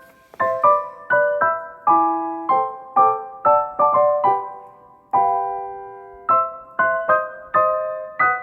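Background piano music: a gentle melody of struck notes and chords, each ringing and fading, about two a second, with one longer held chord about five seconds in.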